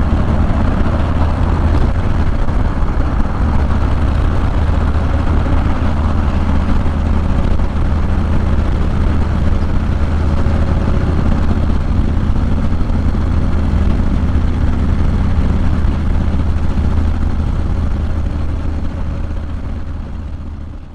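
Harley-Davidson Low Rider S's 110 cubic inch V-twin running steadily through a Sawicki Speed 2-into-1 exhaust, a deep even rumble with no revving, fading out near the end.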